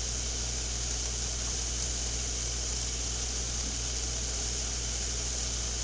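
Butter and oil sizzling steadily in hot frying pans, an even high hiss, over a low steady hum.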